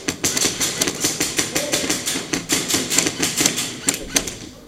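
Airsoft guns firing rapid strings of shots, a dense, irregular clatter of sharp cracks.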